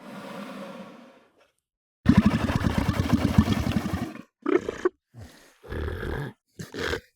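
Southern elephant seal vocalisations: a breathy exhale fading out, then a loud, rapidly pulsed bellow lasting about two seconds, followed by several short calls with gaps between them.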